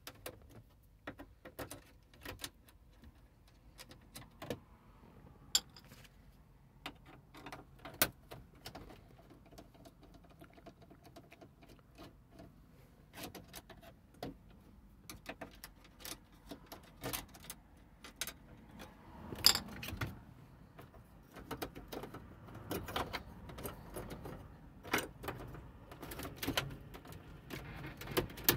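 Scattered sharp clicks and taps of a thin metal pick and fingers working at the plastic dashboard trim and metal radio mounting frame of a VW Touareg, getting louder and more frequent about two-thirds of the way in.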